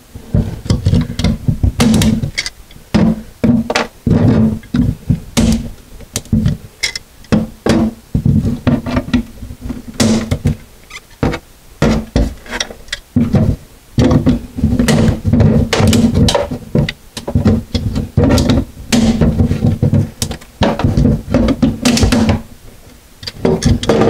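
Channel-lock pliers breaking pieces off an old, corroded plastic sink drain basket: irregular clanks and knocks of the metal tool against the stainless steel sink, with a low ringing from the sink bowl.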